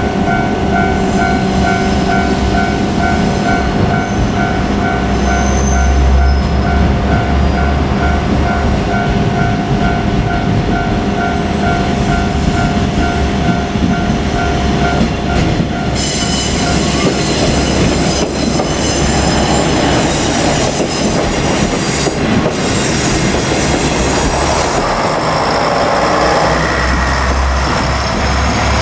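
A level-crossing warning bell rings in a rapid, even pattern over the low rumble of a two-car KiHa 47 diesel railcar. The bell stops a little past halfway, leaving the train's engine and its wheel and rail noise.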